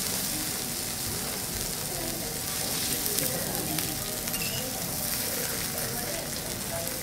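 Pieces of Matsusaka sirloin steak sizzling steadily on a hot teppanyaki iron griddle.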